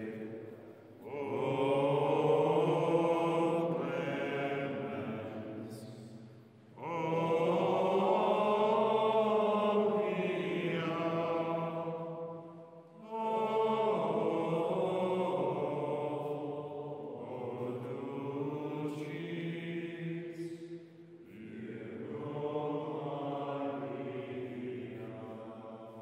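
Slow chant sung by men's voices in long held phrases, with short pauses between phrases.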